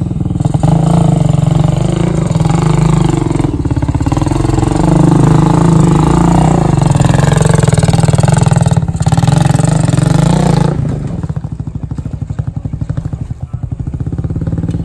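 Vintage dirt bike's engine revving up and down as it pulls the bike up a rocky climb. About eleven seconds in it drops to a quieter, low-rev chug.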